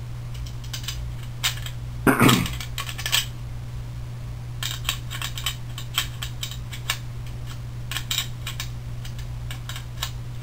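Small metal nuts and washers clicking and clinking as they are worked onto threaded rods through a printed plastic frame vertex, with one louder sliding sound about two seconds in. A steady low hum runs underneath.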